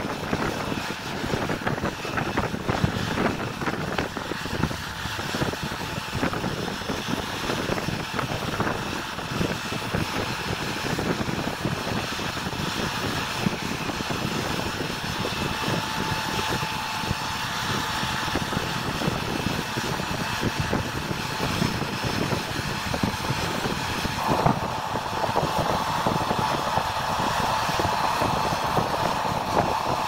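New Holland combine harvester running steadily while harvesting swathed canola: an even rush of engine and threshing-machinery noise. A faint steady whine joins about halfway through and grows stronger in the last few seconds.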